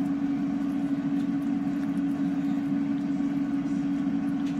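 Steady hum of a kitchen appliance fan with one constant low tone, and faint scrapes of a spatula stirring thick cauliflower and cheese sauce in a metal pot.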